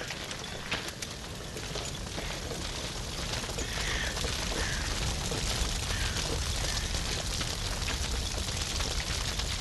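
Steady rushing noise with a deep rumble underneath, swelling slightly over the first few seconds, with a few faint short chirps.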